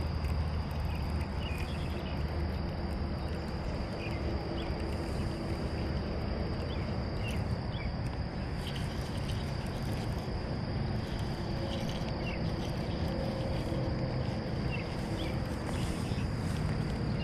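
A steady, high-pitched insect chorus drones without a break over a low rumble. Faint short chirps are scattered through it.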